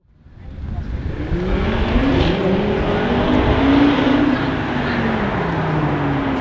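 Audi RS3 8V Sportback's turbocharged five-cylinder engine accelerating hard, its pitch climbing in steps and then falling away near the end. The sound fades in over the first second.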